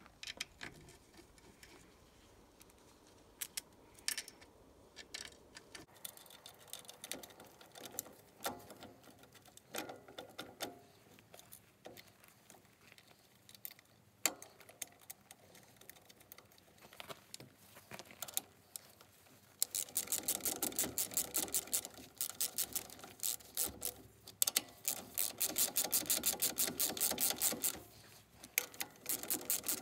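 Hand work on a mini excavator's lever linkage: scattered small metal clinks and taps as parts are fitted, then, from about two-thirds of the way in, a ratchet wrench clicking rapidly and evenly as it turns a bolt, in long runs with a short break.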